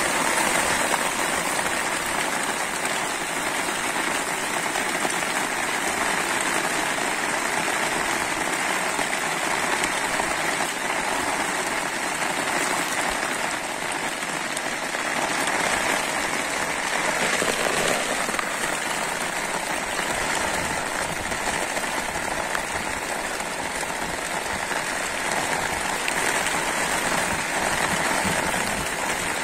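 Steady rain falling on shallow floodwater, an even hiss of drops hitting the water's surface.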